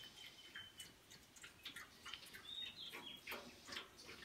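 Faint trickling and splashing of water poured from a plastic bottle into the stainless steel cooling-water pan of a barrel oven. A bird chirps a couple of times in the background.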